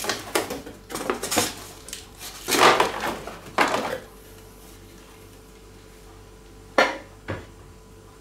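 Cardboard packaging rustling and scraping and the wooden base-frame parts of an Ikea Nordmyra chair knocking as they are lifted out of a flat-pack box, in a run of bursts over the first few seconds. A sharp knock follows near the end.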